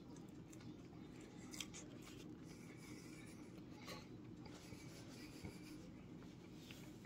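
Near silence: room tone with a steady low hum and a few faint clicks.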